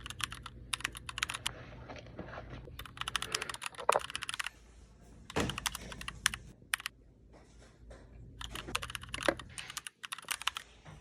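Rapid typing keystrokes in several bursts of fast clicks, separated by short pauses, with a few heavier key knocks among them.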